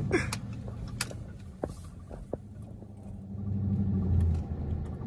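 Dodge Charger's V8 engine heard from inside the cabin, running with a low drone at low speed. It grows louder about three and a half seconds in as the car accelerates, then eases off, with a few faint clicks.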